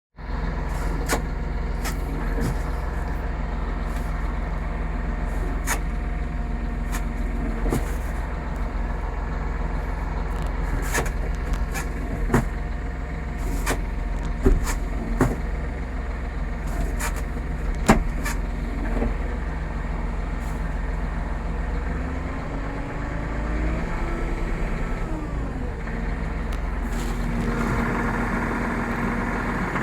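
Massey Ferguson 4708 tractor running, its drone overlaid with irregular sharp clicks and knocks and, about three-quarters of the way in, shifting whining tones: the gearbox noise the owner takes for a transmission fault.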